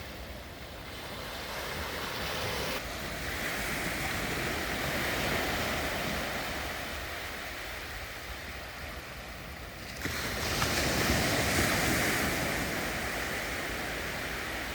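Sea waves breaking and washing up on the shore, the surf swelling and easing, with a louder surge just after ten seconds in.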